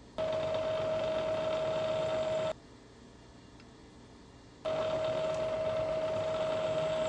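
Milling machine spindle running while a 1/4 inch spotting drill spots hole locations in A2 steel vise jaws: a steady whine with cutting noise, in two runs of about two seconds each that start and stop abruptly.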